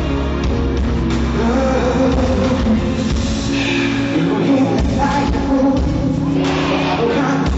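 Live pop music with a singing voice over a band backing, recorded from the audience in a large hall.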